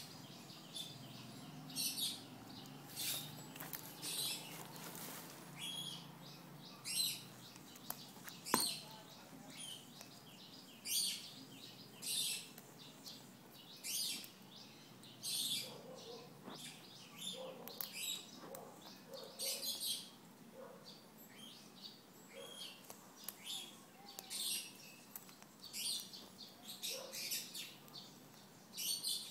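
Moluccan cockatoo biting and chewing a red chilli pepper held in its foot, its beak making short crunching bites about once a second.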